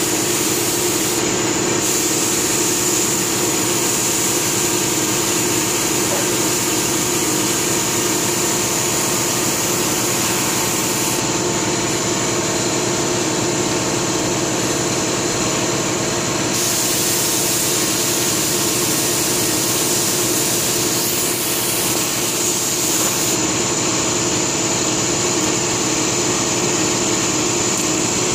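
Compressed-air paint spray gun hissing as paint is sprayed onto wicker furniture, over the steady running hum of an air compressor. The gun's hiss stops about eleven seconds in, starts again about five seconds later, and stops once more a few seconds before the end.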